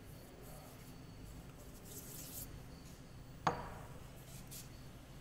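A single sharp metallic knock with a brief ring as the aluminium hydraulic pump body is set down on the wooden workbench, with faint rustling of cloth and handling before and after.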